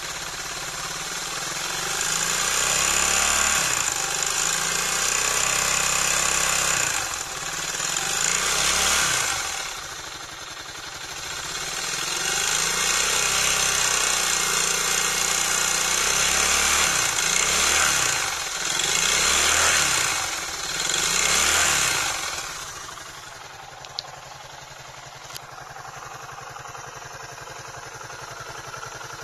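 Suzuki DF200 outboard engine revved up and back down several times, then dropping to a lower, steadier running near the end. The engine has a fault with an abnormal noise awaiting repair.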